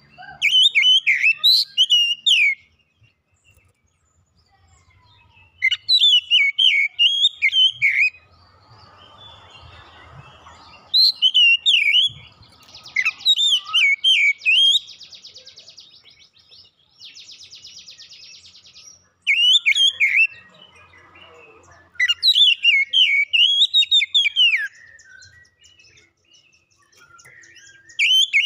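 Oriental magpie-robin singing loud, warbling whistled phrases of about two seconds each, several seconds apart. Two buzzy, rattling stretches come in the middle, between phrases.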